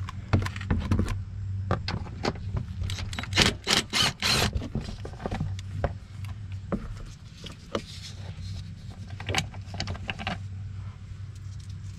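Cordless impact driver with a 10 mm wobble socket spinning out a splash-shield bolt in short loud bursts, most of them about three to four and a half seconds in, among scattered clicks and knocks from handling the plastic shield. A steady low hum runs underneath.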